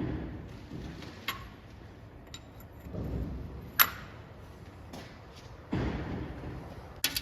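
Hand work on a valve spring compressor and valve collets: a few sharp metallic clicks and several dull knocks as the parts are handled and fitted.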